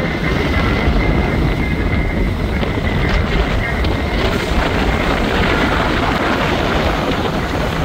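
Steady rumbling noise with wind buffeting the microphone.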